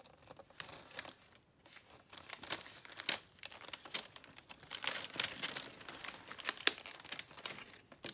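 Hands kneading and stretching a large lump of foam-bead butter slime on paper: irregular crackling and popping. It is sparse at first and gets busier after about two seconds.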